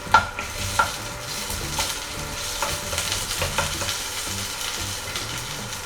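Ginger-garlic paste sizzling in hot oil in a kadai while a spatula stirs it, knocking against the pan about once a second.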